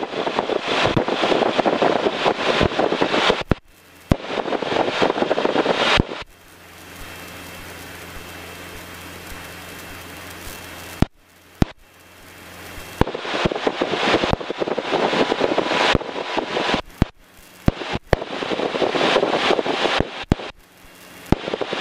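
Loud crackling static on the Cessna 150's cockpit intercom audio, cutting in and out abruptly several times. In a quieter stretch of about five seconds in the middle, the engine's low, steady drone comes through instead.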